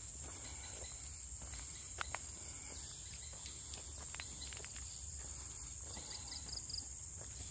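Steady high-pitched drone of insects, with scattered footsteps and clicks on the trail, two sharper ones about two seconds in. Near the end there is a brief run of about five quick chirps.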